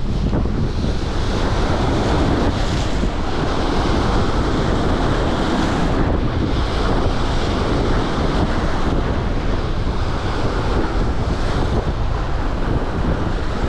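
Strong wind buffeting the microphone, with choppy lake waves washing against a boat. The noise is loud and steady throughout.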